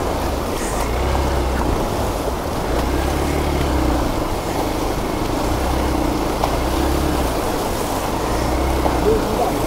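Fast, rocky river rushing steadily around a Hero Xpulse 200 4V motorcycle in mid-crossing, with the bike's single-cylinder engine running low beneath the water noise.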